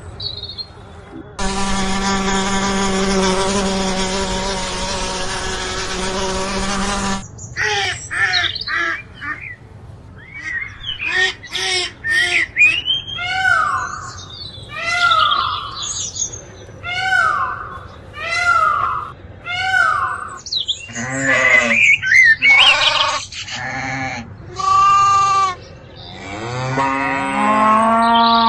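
A series of different farm animal calls one after another: first one long steady call, then a run of short falling calls repeated about every second and a half, then bleating calls. Near the end a low drawn-out call begins.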